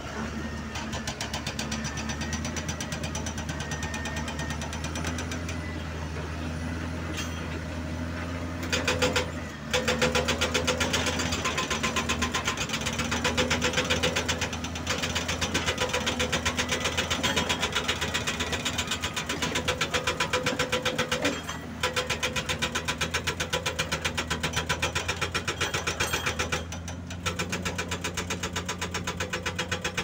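Heavy diesel engines of a bulldozer and an excavator running steadily. From about nine seconds in, the excavator's hydraulic breaker hammers rock in a rapid, even stream of blows, stopping briefly a few times.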